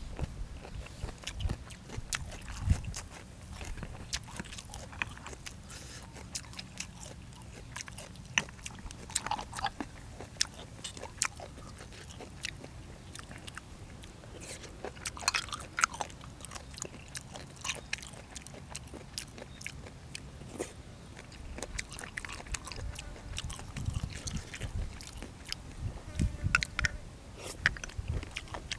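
A person eating at close range: irregular chewing and crunching mouthfuls, with scattered sharp clicks and small knocks.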